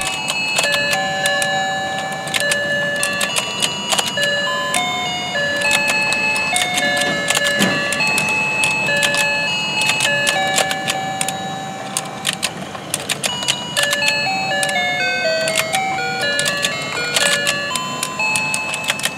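Battery-powered fishing game toy playing its built-in electronic tune through its small speaker: a simple melody of single beeping notes. Frequent sharp plastic clicks and taps run under it as the fish platform turns and the rods work the fish.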